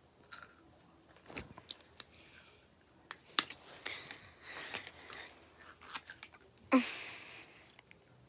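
Close handling noise on a phone's microphone: hair and hands brushing and rubbing over it, giving scattered light clicks and rustles, with one louder rustling burst about two-thirds of the way through.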